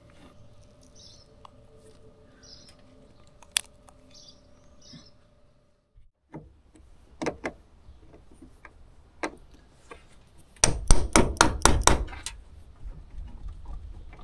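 Adjustable spanner and battery terminal clamp knocking and clicking on a car battery post as the clamp is worked on and tightened. A few scattered clicks come first, then a fast run of about eight sharp metal knocks lasting a little over a second, the loudest part.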